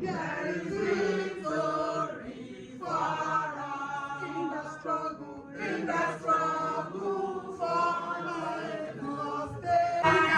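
A group of voices singing together in chorus.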